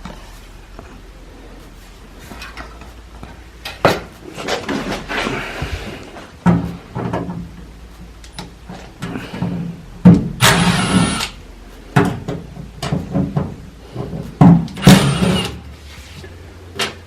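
Irregular knocks, clicks and scraping from boiler intake and exhaust vent parts being handled and fitted, with two louder rasping scrapes about ten and fifteen seconds in.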